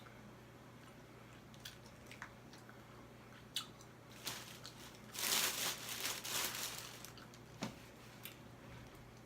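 Close-up eating of crab legs: scattered small clicks and smacks, with a dense crunching, crackling stretch about five seconds in as shell is cracked and meat chewed.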